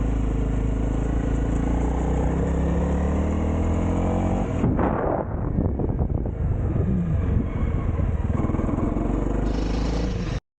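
Honda CRF300L's single-cylinder four-stroke engine running as the bike is ridden: a steady engine note for about four and a half seconds, then a rougher, noisier sound with the even note broken up. The sound cuts off suddenly near the end.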